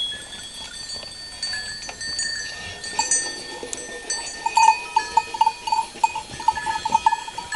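Sheep bells clinking and ringing as the crowded flock shifts about. From about halfway through, a bell jingles rapidly.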